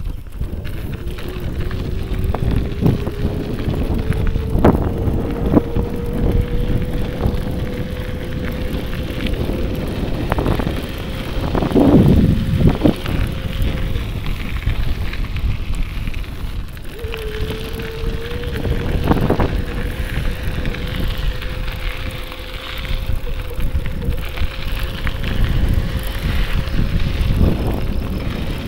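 Bicycle ride on a paved greenway: wind on the microphone and a constant low rumble of riding, with a faint steady whine that holds one pitch, breaks off about halfway and comes back, and a few louder bumps.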